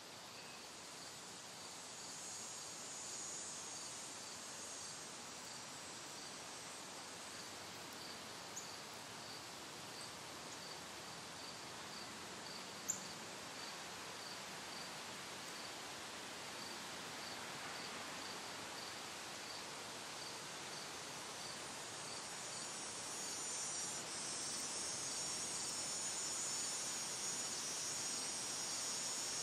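Insects chirping: one even chirp about twice a second over a higher, hissing insect chorus that grows louder near the end, with a single sharp click about midway.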